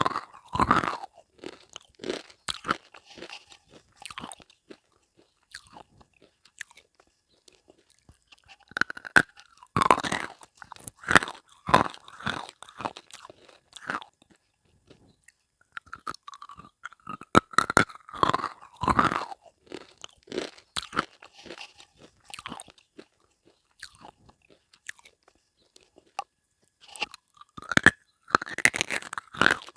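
Close-miked crunching and chewing of hard, brittle slate pencil and dried clay: groups of sharp bites and crunches separated by short quiet pauses.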